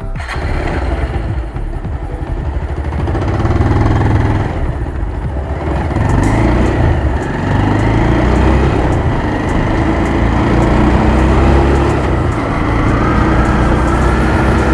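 Bajaj Pulsar 180's single-cylinder engine running while being ridden on the road, with road noise; it gets louder over the first few seconds as the bike picks up speed, then holds steady.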